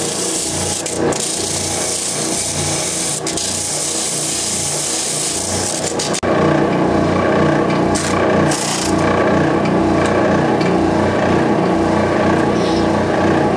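Benchtop oscillating spindle sander running with a steady motor hum, its sanding drum grinding against the edges of round holes cut in a plywood board. It gets a little louder about six seconds in.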